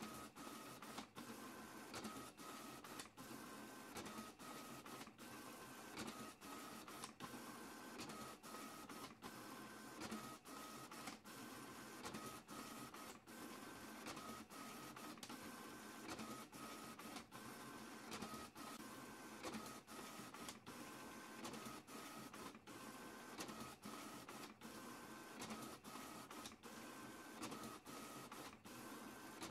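Printer running a continuous print job: a steady mechanical whirr with a high tone that shifts back and forth between two pitches every second or so, broken by frequent brief pauses.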